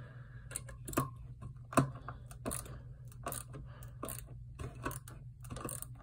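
Ratcheting bit driver on a Leatherman Curl multitool clicking as it drives a wood screw into a board, with a sharp click roughly every half to one second on the back-strokes.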